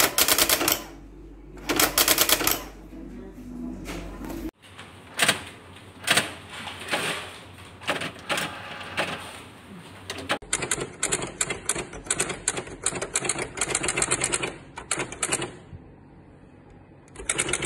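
Brother GX-series electronic daisywheel typewriter mechanism clicking and whirring in several separate bursts, with a fast, even run of ticking from about ten seconds in. The machine is faulty: its carriage mechanism will not move right, and the print mechanism moves without striking.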